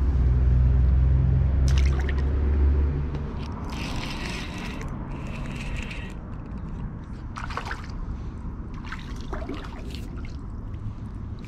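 Water splashing and trickling in shallow river water as a released fish is let go, then a hooked crappie splashing at the surface near the end. A low rumble runs through the first three seconds.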